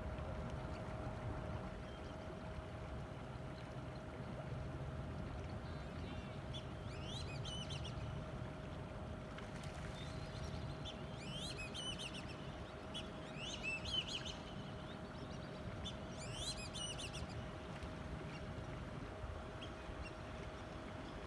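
Steady hum of a boat's motor over a low rumble of water and hull. Bird calls sound over it in four short bursts of chirps, one about a third of the way in and three close together in the second half.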